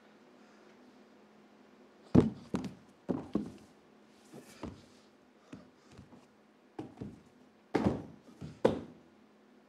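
Bare feet, hands and body thudding and slapping on a wooden stage floor as a dancer rolls and crawls: a dozen irregular knocks, the loudest about two seconds in, over a faint steady hum.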